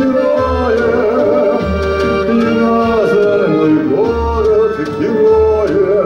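Live brass-and-rhythm band, with horns, bass guitar and drums, playing an instrumental passage of a song. A low bass note sounds about once a second under the melody.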